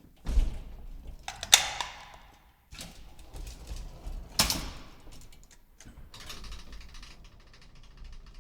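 Elevator door and drive mechanism: a low thud, then two sharp clanks about three seconds apart, then a fast, even mechanical rattle from about six seconds in.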